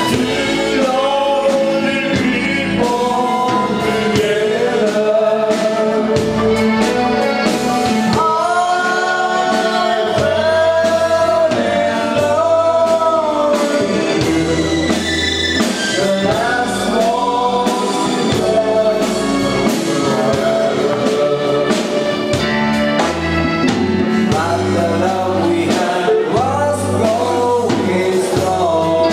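Live dance band playing a song with a lead singer, over keyboards and sustained bass notes.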